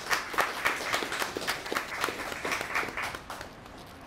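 Audience applauding with closely spaced hand claps that die away about three and a half seconds in.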